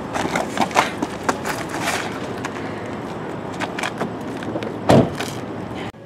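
Scuffling, clothing rustle and knocks as a man is hauled out of a car's driver's seat and dropped to the pavement, with one heavy thump about five seconds in. The scuffle cuts off just before the end.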